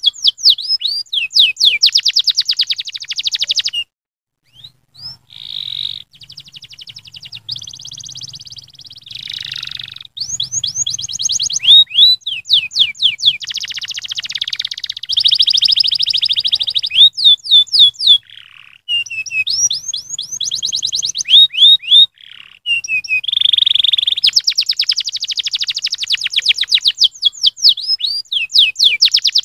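Domestic canary singing a long song of fast trills and rolls mixed with quick sweeping notes, breaking off briefly about four seconds in.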